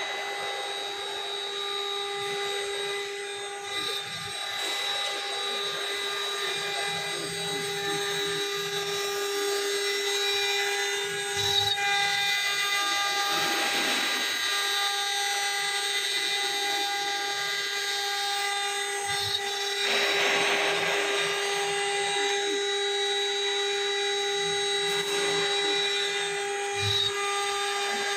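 CNC engraving router's spindle running with a steady whine while it engraves. Louder surges of cutting noise come about 13 seconds and 20 seconds in.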